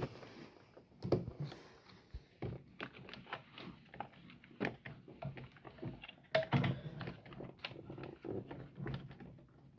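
Irregular clicks and knocks of wires and a screwdriver being worked into circuit breaker terminals, with a sharper knock about six and a half seconds in.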